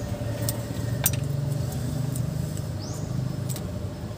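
A vehicle engine idling steadily, with a few light metallic clicks from a steel feeler gauge's blades being handled over the rocker arms.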